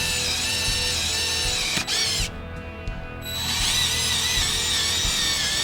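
Power drill boring into a wooden pedal board, run in two bursts of about two and a half seconds each with a short pause between; the high motor whine wavers in pitch as the bit loads up in the wood.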